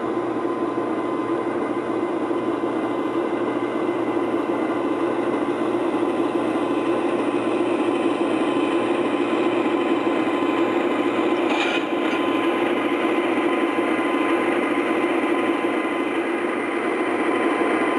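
O scale model train running on the layout's loop, a steady rumble with a thin whine over it.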